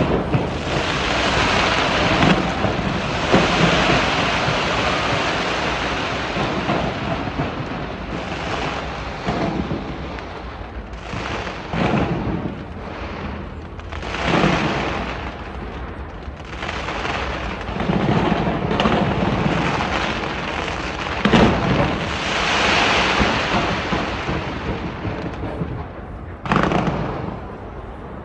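Large fireworks display: a dense, continuous crackle and rumble of shells bursting, with sharper bangs standing out every few seconds.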